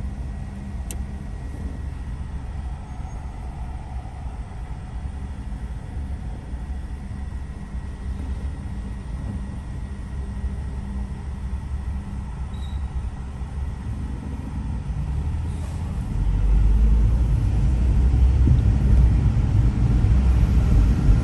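Car driving in city traffic, heard from inside the car: a steady low road and engine rumble that grows clearly louder about three-quarters of the way through.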